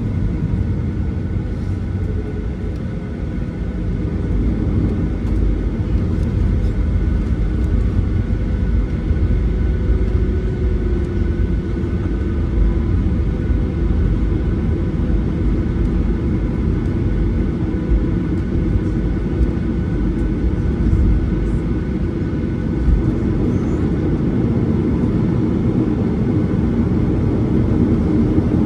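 Cabin noise of a Boeing 737-800 taxiing, heard from a window seat over the wing: a steady low rumble from its CFM56 engines at taxi power and the rolling gear, with a faint steady whine above it.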